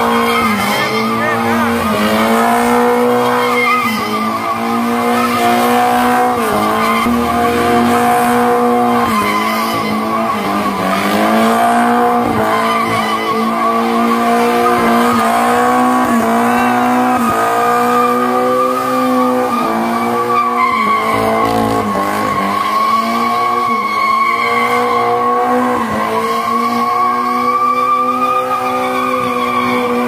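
Toyota Corolla with a 1.8 engine drifting: the engine is revved hard, climbing and dropping every second or two, while the rear tyres squeal steadily as they spin.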